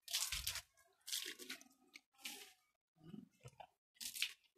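Hand rubbing along a bamboo pole in about five short scrubbing strokes.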